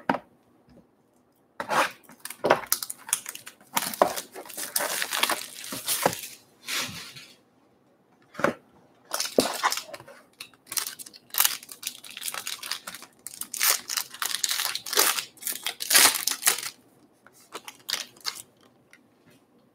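Trading-card packaging being torn open and crinkled by hand, in uneven stretches of tearing and rustling broken by a short pause about halfway through.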